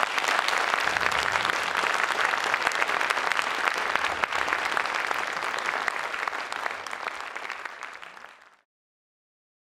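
Audience applauding: dense, steady clapping that eases off slightly and then cuts off abruptly a little over eight seconds in.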